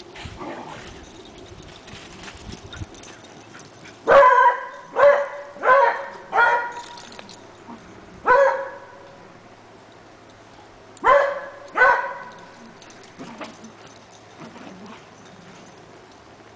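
A dog barking seven times: a run of four quick barks, a single bark a couple of seconds later, then two more close together.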